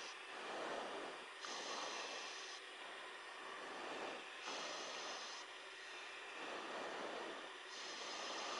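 Slow breathing on an open aircraft intercom microphone over a steady cockpit noise bed: about three breaths, each a hissy intake alternating with a softer exhale, roughly one every three seconds.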